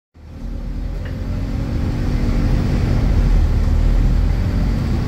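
Scania K280UB bus's 9-litre five-cylinder diesel engine running, heard from inside the passenger saloon: a steady low drone that fades in and grows gradually louder over the first few seconds.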